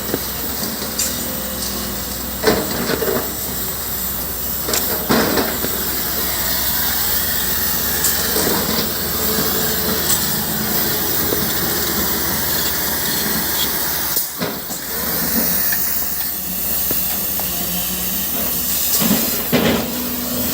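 JCB backhoe loader's diesel engine running steadily with a hissing noise over it, and a few sharp knocks a couple of seconds apart, some seconds apart again later on.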